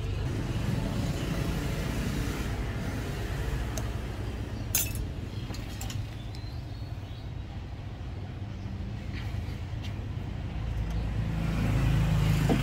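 Steady low rumble of background road traffic, swelling louder near the end, with a single sharp click about five seconds in.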